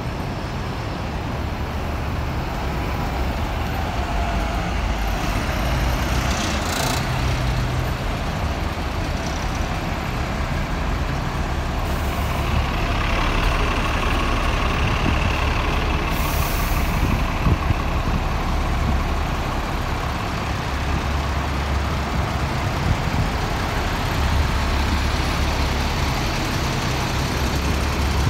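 Three-axle Citybus double-decker diesel bus pulling away from a stop and driving past: a steady low engine rumble with a drive whine that climbs in pitch as it gathers speed. A few short sharp hisses of air come partway through.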